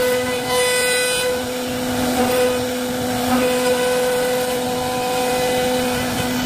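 CNC router spindle running while carving wood: a steady motor whine with a hiss of cutting. About half a second in, a brief brighter hiss rises above it.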